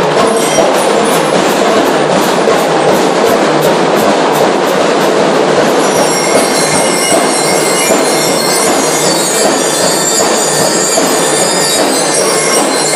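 A school drum and lyre corps playing loudly: drums and cymbals keep a steady march beat, and bell-lyre notes ring out over them from about six seconds in.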